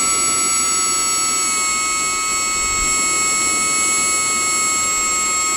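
Miniature jet turbine on an RC plane whining steadily during its start-up, several high tones holding level, with air still working through the fuel line.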